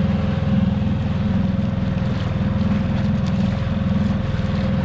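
Boat engine running steadily under way: a loud, even, pulsing low rumble with a steady whine above it.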